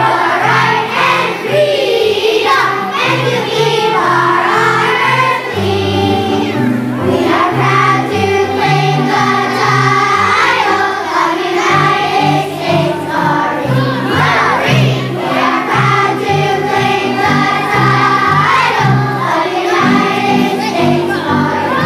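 A children's choir singing with a musical accompaniment.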